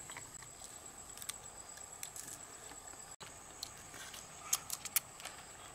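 Faint outdoor background with a thin steady high tone. In the last second or so come several sharp clicks, as cooked crab shells are cracked and pulled apart by hand.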